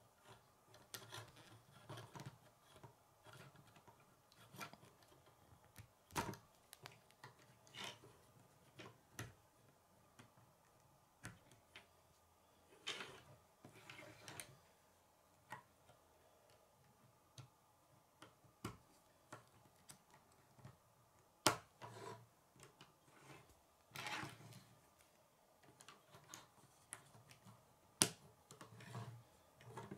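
K'nex plastic rods and connectors clicking and snapping together, with pieces rubbing and tapping on a wooden tabletop: faint, irregular clicks and short scrapes, the sharpest clicks about two-thirds through and near the end.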